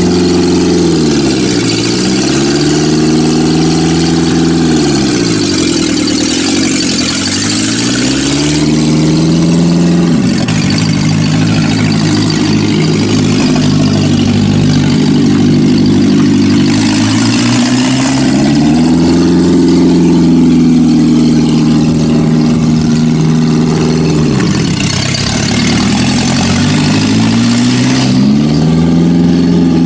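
1990 Geo Tracker's 1.6-litre four-cylinder engine running under load on a drive after a clutch replacement. Its pitch climbs and then falls away several times, as at gear changes, with a long steady stretch in the middle; the new clutch is working properly.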